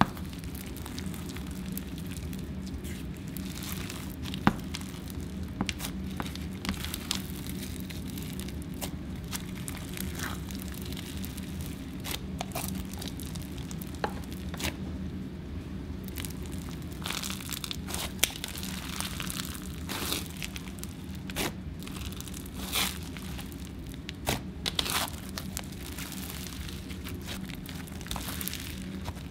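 Hands squishing, poking and stretching a soft slime packed with bingsu beads and clay, giving irregular crunches, crackles and pops over a low steady hum.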